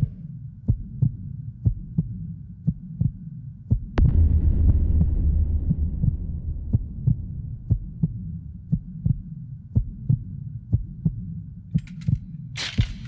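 Heartbeat sound effect, a fast, even beat of about three thumps a second over a low rumble, with one heavier hit about four seconds in and a few sharp noises near the end.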